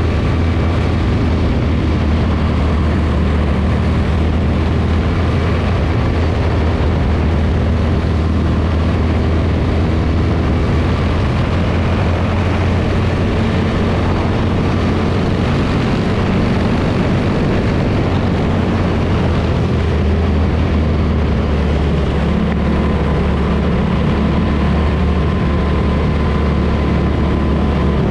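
Quarter midget's small single-cylinder engine running at a steady speed, heard up close from on board the car, under a steady rush of wind and road noise.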